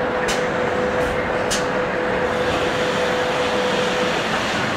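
Utien sealing-bar welding machine working through a weld, the bar pressed down onto the sheet: a steady whine over a constant rushing machine noise, the whine stopping about four seconds in, with two light clicks in the first second and a half.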